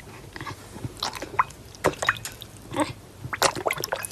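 A dog splashing its muzzle in a bowl of water: irregular wet slaps and drips, coming thicker in the second half.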